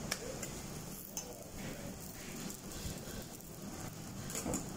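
Roti telur frying on an oiled flat metal griddle: a steady low sizzle, broken by a few sharp clicks of a metal spatula against the griddle, one at the start and a couple near the end.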